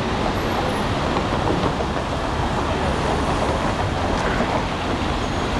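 Steady city street traffic noise from vehicles on a busy downtown road.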